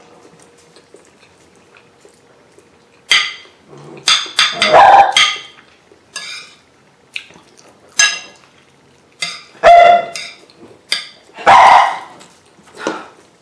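Dog barking: a string of loud barks, some in quick clusters, starting about three seconds in. Before that there are only faint clinks of a spoon on a plate.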